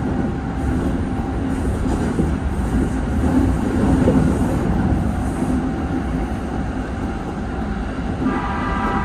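Running noise of a Keikyu 1500-series electric train under way: a steady low rumble of wheels on rail and motors. A set of steady higher tones joins in near the end.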